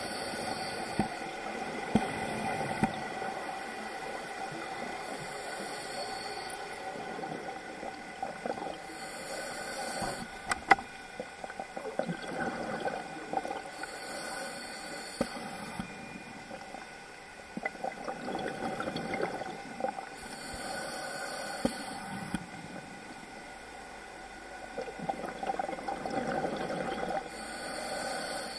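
Scuba diver breathing through a regulator underwater: a short hiss with each inhalation every few seconds, and exhaled bubbles rumbling in between. A faint steady hum lies underneath.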